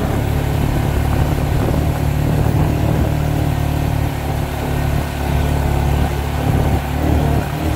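Dirt bike engine running steadily at low speed under the rider on a rocky dirt road, easing off briefly a few times in the second half.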